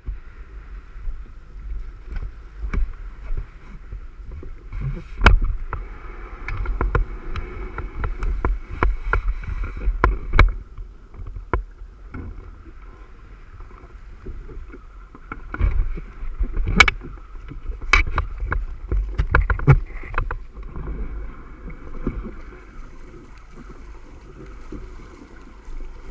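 Wind buffeting the microphone of a camera mounted on a Hobie Cat catamaran, with water sloshing against the hull and many sharp knocks and clunks on the fibreglass hull as the boat is handled in shallow water off a sandbar.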